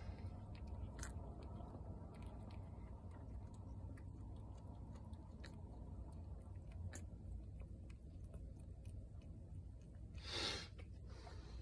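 Mother cat licking and chewing at her newborn kittens just after giving birth: faint soft mouth sounds with scattered small clicks over a low steady rumble. A brief louder rush of noise about ten seconds in.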